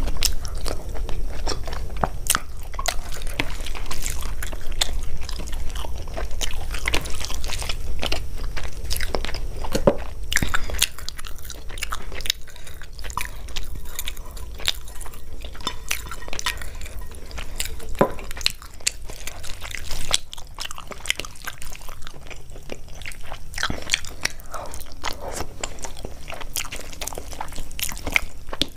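Close-miked eating: a person biting and chewing food, with crunching and many small wet mouth clicks.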